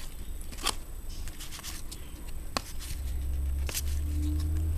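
Trading cards being handled and slid against one another, with a few sharp snaps of card edges.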